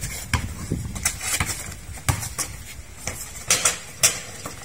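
Basketball dribbled on a concrete court amid players' footsteps: an uneven series of sharp knocks and thuds, the loudest about three and a half and four seconds in.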